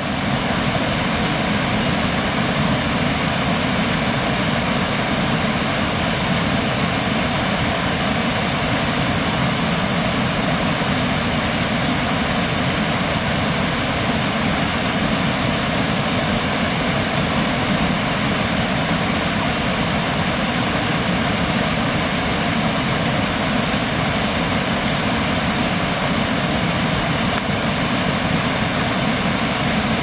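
Fast-flowing river water rushing: a loud, steady, even noise with no breaks.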